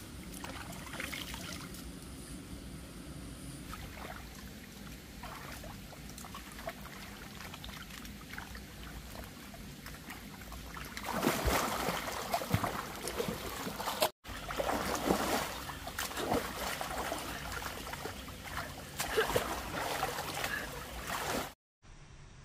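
Water trickling, then louder, choppy splashing and sloshing from about eleven seconds in, as someone moves through shallow water feeling for snails. The sound drops out abruptly twice.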